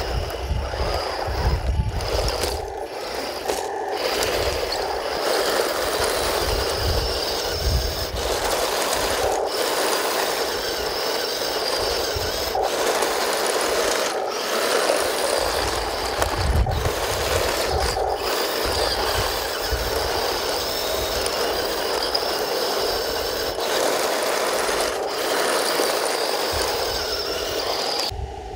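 Radio-controlled model tank driving over rough dirt: its electric drive motors and gearboxes whir steadily with a thin high whine, while the tracks clatter and rattle over the clods.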